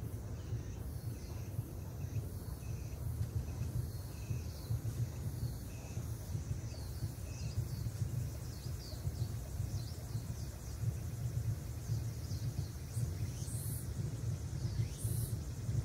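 Outdoor ambience: a steady low rumble with faint bird chirps, short falling calls scattered through it.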